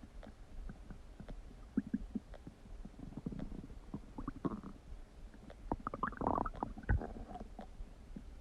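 Human stomach gurgling and rumbling: scattered small pops and short gurgles, building to a longer, louder gurgle about six seconds in that ends with a sharp low thump.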